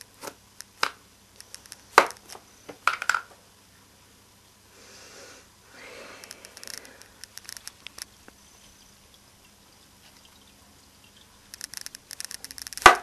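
Light clicks and knocks of things being handled, with a soft stretch of water sounds about five to seven seconds in, then a quick run of clicks near the end.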